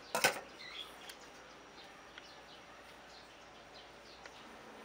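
A stainless steel pot lid clinks once as it is set down on the pot, then faint bird chirps sound over a quiet background.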